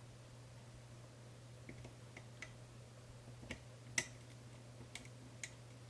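Scattered small metallic clicks and ticks of a lift pick working a pin inside a 5-pin Medeco cam lock under tension, lifting and rotating it, with the sharpest click about four seconds in. A faint steady hum lies underneath.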